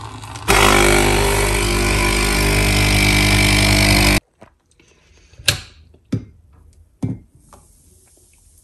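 Capsule coffee machine's pump running with a steady hum for about four seconds while it brews coffee into a mug, then cutting off abruptly. A few short knocks and clinks follow.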